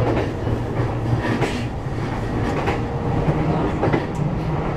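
Running noise of a JR E233-series electric train heard from inside, behind the cab: a steady low hum with a few sharp clicks of the wheels over the rails.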